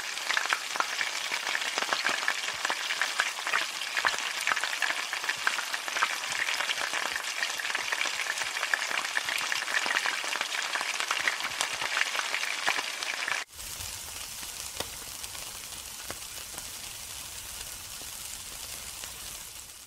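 Food frying in hot oil in a wok, a dense crackling sizzle with many small pops. About thirteen seconds in it cuts to a quieter, steadier sizzle of meat skewers on a grill.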